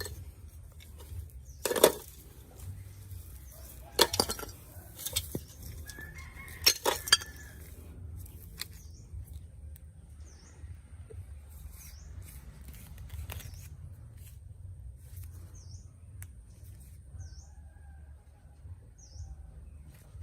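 Sharp clicks and clinks of small tools and hard phone parts being handled, several in the first seven seconds, then sparser. Over a low steady hum, a short high chirp repeats about every second and a half.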